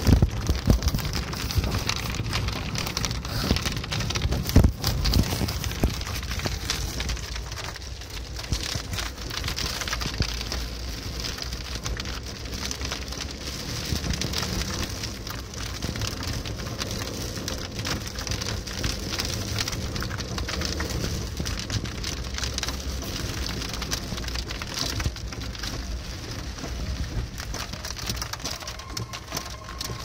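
Rain striking a car's windscreen and roof, heard from inside the moving car over the low rumble of the car running. There are a couple of louder knocks in the first few seconds.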